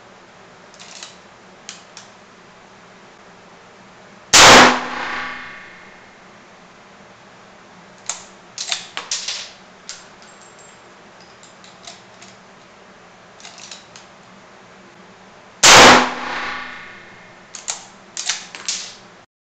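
Two shots from a .303 British Lee-Enfield rifle fitted with a muzzle brake, about eleven seconds apart, each ringing out in an echoing tail. A few seconds after each shot comes a quick run of metallic clicks and clacks as the bolt is worked to eject the case and chamber the next round.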